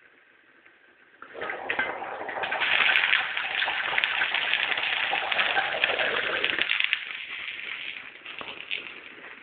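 Food bubbling and sizzling in a pot on the stove. It comes up loud about a second in as the lid is lifted off, and turns muffled and fades after about seven seconds once the lid goes back on.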